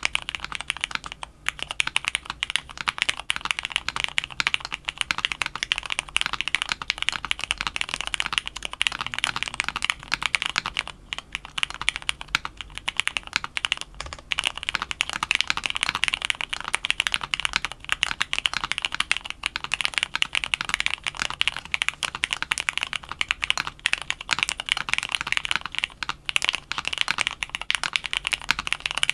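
Continuous fast typing on a custom mechanical keyboard: lubed Cherry MX Black Ultraglide linear switches in an aluminium plate, foam-filled case, with CRP keycaps, giving a steady stream of key strokes with a few brief pauses.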